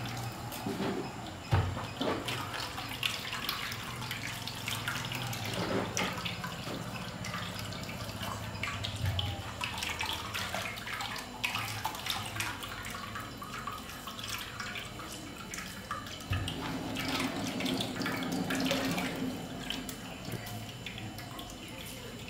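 Wet ground curry-leaf paste being squeezed by hand in a plastic strainer, its green juice trickling and dripping into a steel bowl below, with a steady wet crackle of many small clicks and splashes.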